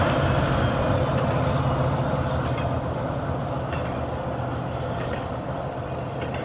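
Norfolk Southern freight train passing: a steady low rumble of diesel locomotives and rolling double-stack container cars, slowly fading.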